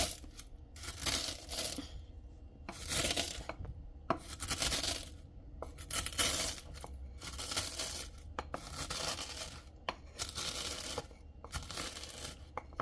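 Corn flakes being crushed in a mortar: repeated crunching strokes, roughly one a second, with a few sharp clicks.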